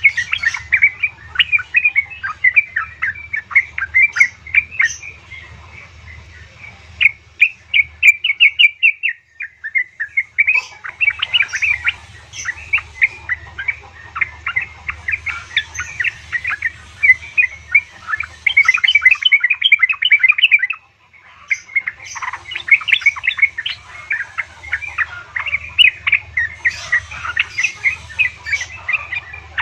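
Yellow-vented bulbul (trucukan) calling in rapid, dense bursts of chattering notes, the calls of a female calling a male. The chatter breaks off briefly twice, about a third of the way in and again about two-thirds in.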